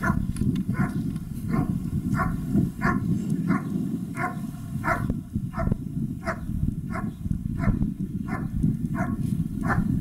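German shepherd holding the helper at the blind and barking steadily at him, the hold-and-bark of a protection trial. The barks come about three every two seconds, over a steady low rumble.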